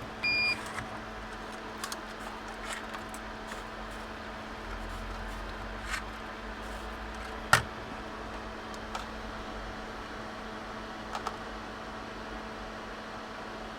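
Steady fan hum of a hot-air rework station blowing. A short electronic beep comes right at the start, and light tool clicks are scattered through, with one sharper click about halfway through.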